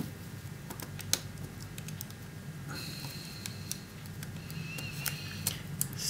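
Small irregular clicks and taps of fingers working the plastic and metal parts of a partly disassembled smartphone, pulling an internal board free of its plastic clips; the sharpest click comes about a second in.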